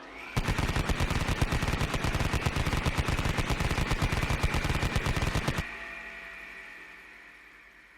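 Vulcan-type rotary machine gun firing one long burst of about five seconds at a very high rate, the shots running together into a continuous ripping buzz. A high whine is heard as the burst starts and dies away slowly after it stops.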